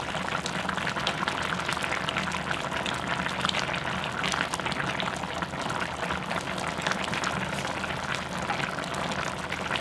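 A pot of kimchi and pork-belly stew (kimchi-jjim) bubbling steadily over medium heat, with a constant fizz and crackle of small popping bubbles.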